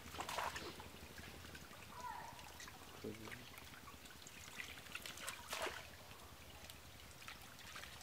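Water splashing and dribbling as plastic bowls scoop fish and water out of a cast net full of fish, with scattered splashes; the loudest come about half a second in and a little after five seconds in.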